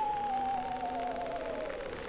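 Eerie theremin-style Halloween sound effect: a single wavering tone sliding slowly down in pitch, its vibrato growing, over a steady hiss.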